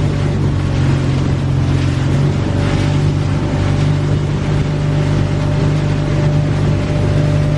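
Motorboat engine running at a steady speed, with wind and water noise over it.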